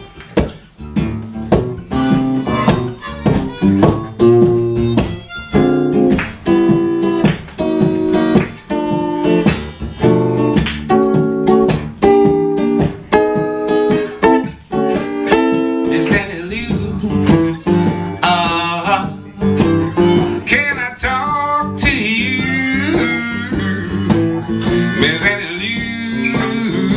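Live acoustic blues: an acoustic guitar strummed in a steady rhythm with a harmonica played over it. About halfway through, the harmonica comes forward with wavering, bent notes.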